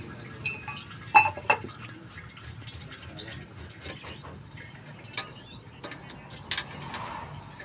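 Metal clinks and taps of a spanner working the nuts and fittings of an old stationary diesel engine, with bolts being tightened; a few sharp clinks come at irregular moments, two close together about a second in and more in the second half.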